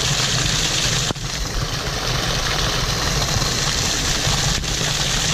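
Wind buffeting the microphone on an exposed ridge: a steady rushing noise with a heavy, fluttering rumble underneath, briefly dropping away about a second in.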